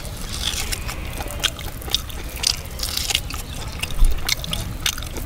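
A man biting and chewing cooked mutton brisket on the bone, tearing meat off the ribs, with many short wet clicks and smacks from the mouth.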